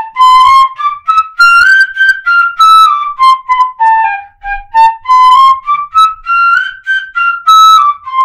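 Pífano (Brazilian cane fife) in C playing a quick G scale up one octave and back down, twice, in short clear notes. The notes come in groups of four, the first two tongued and the next two slurred, as a practice exercise in articulation.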